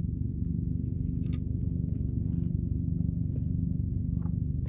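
A motor running steadily: a low, even drone with a few faint ticks over it.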